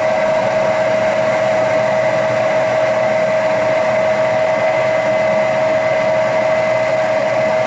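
Induced draft (inducer) motor of a Lennox G51 gas furnace running with a steady hum and one strong, unwavering tone, started by a call for heat with R and W jumpered at the control board.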